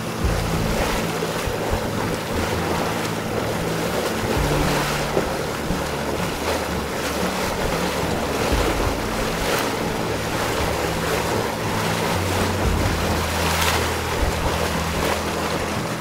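Steaming mud pot: a steady rushing, churning noise of venting steam and boiling mud, with irregular low rumbling and wind on the microphone.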